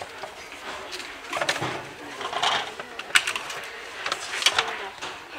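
School binders and their plastic packaging being handled on a store shelf: rustling with a few sharp clicks and taps.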